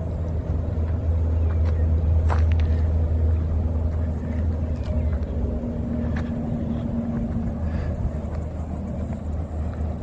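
Steady low rumble of highway traffic going by, with a faint tone from a passing vehicle in the middle.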